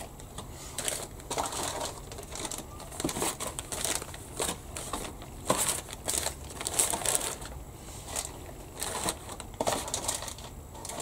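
Clear plastic bags holding model kit sprues crinkling and rustling as they are handled and pressed down into a cardboard box, in irregular bursts.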